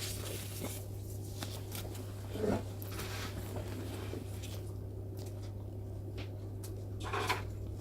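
Steady low hum with faint rustling and soft handling clicks, and a brief louder rustle about two and a half seconds in and again near the end.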